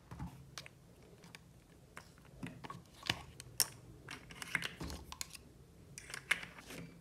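Plastic clicks and light knocks as pineapple-shaped lids are pulled off a clear plastic popsicle mold one by one and set down: irregular small clicks, the sharpest a little after three seconds in.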